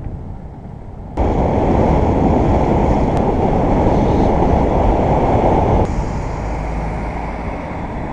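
Wind rushing over the microphone of a camera on a bicycle running fast downhill on a paved lane, with tyre and road noise under it. It gets suddenly much louder about a second in and falls back to a lower rush about six seconds in.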